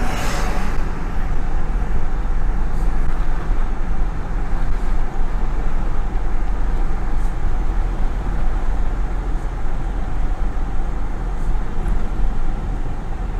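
Steady road noise heard from inside a moving vehicle towing a small travel trailer: engine and tyre rumble, with a brief hiss right at the start.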